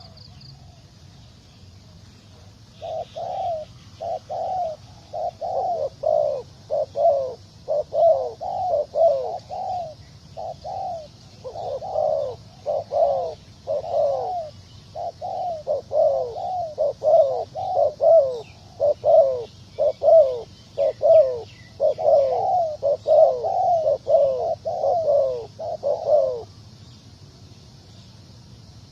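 Spotted dove cooing: a long run of low coo notes, each falling in pitch, that starts about three seconds in and stops a couple of seconds before the end.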